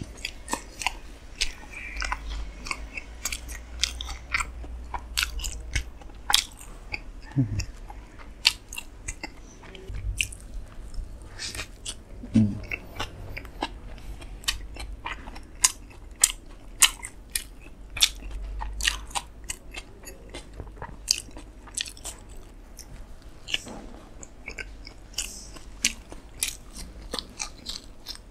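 Close-miked eating of a toasted chicken club sandwich dipped in sauce: bites and steady chewing full of sharp, irregular mouth clicks and crunches.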